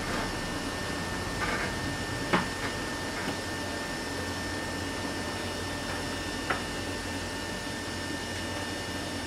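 Steady whooshing air noise with a faint steady whine, broken by a few small sharp clicks, the loudest about two and a half seconds in and another near six and a half seconds.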